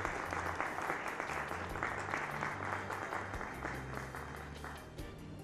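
Audience applauding, a dense run of many hands clapping that dies down near the end.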